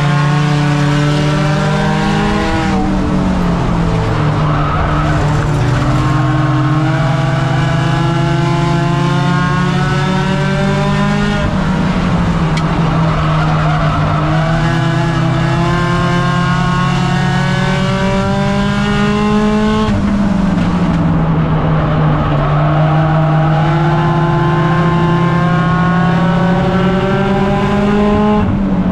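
Race car engine heard from inside the cockpit at full racing speed. Its pitch climbs steadily along the straights and drops sharply three times, about every nine seconds, as it slows through the turns. Road and wind noise run underneath.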